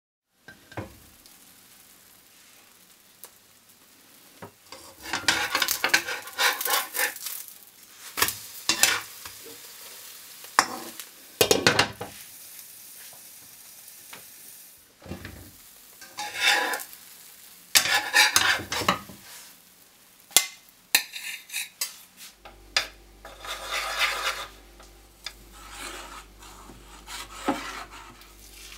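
Cake batter frying in a covered pan: sizzling, with intermittent clatter of the pan and lid. In the last few seconds, a spoon scrapes and stirs batter in a stainless steel bowl over a low steady hum.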